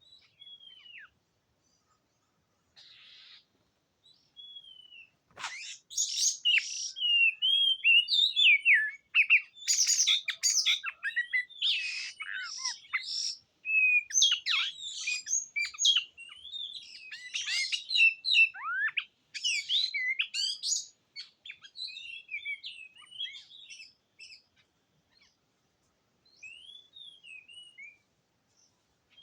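Oriental magpie-robin singing: a fast, varied run of clear whistles mixed with harsher scratchy notes. It starts loud about five seconds in, continues for some fifteen seconds, then thins to scattered notes.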